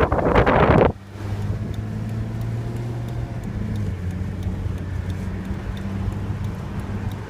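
A loud rough rustling for about the first second, cutting off sharply. Then a car engine runs with a steady low hum, heard from inside the moving car's cabin.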